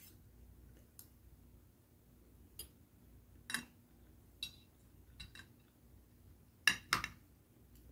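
Cutlery clinking and tapping against a plate while eating: scattered light clicks, the loudest pair coming close together about seven seconds in.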